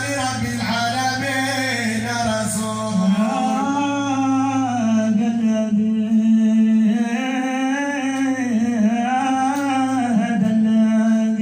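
Men singing Moroccan Sufi madih, a devotional praise song, unaccompanied into microphones. A lead voice holds long, slowly wavering notes with no pauses.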